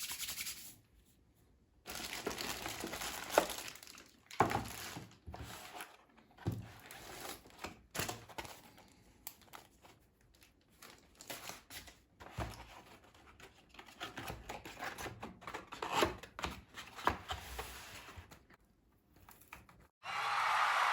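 Packaging being handled: paper or plastic wrapping crinkling and tearing in irregular bursts, with a few sharp clicks and knocks.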